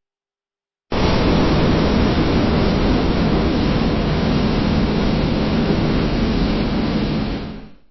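Busy ironworks factory ambience: a dense, steady industrial din of machinery, heaviest in the low range. It starts suddenly about a second in and fades out near the end.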